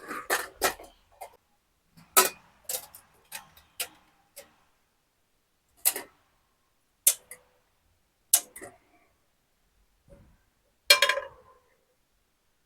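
Scattered sharp clicks and knocks of kitchen utensils and cookware being handled: about ten separate strikes with short silences between, the last one near the end a little longer and rattly.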